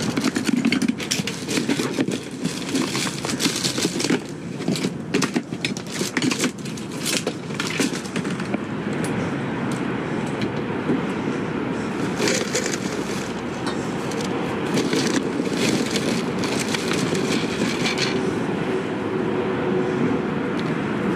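Trash being rummaged through: rustling and clattering of bags and items being handled, with many quick crackles through the first several seconds, then a steadier noise with fewer clicks.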